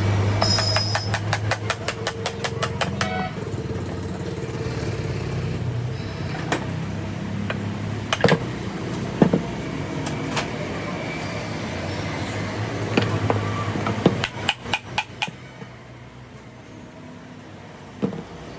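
Sharp metallic taps and knocks from work on a cooler motor, with a fast run of clicks in the first few seconds and a cluster of knocks near the end, over a low steady hum.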